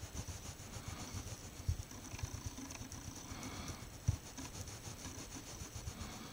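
Cotton swab scrubbing back and forth on a laptop processor to clear off stubborn old thermal paste: a faint, scratchy rubbing, with two louder knocks about a second and a half in and about four seconds in.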